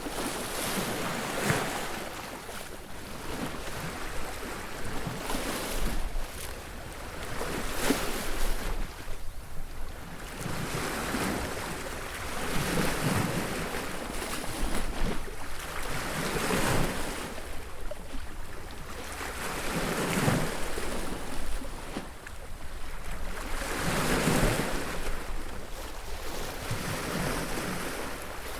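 Sea waves breaking on a beach: a steady wash of surf that swells every few seconds as each wave crashes, then draws back.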